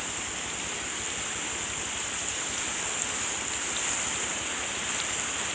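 The Teesta River in flood, a steady rush of fast-flowing water with a steady high hiss on top.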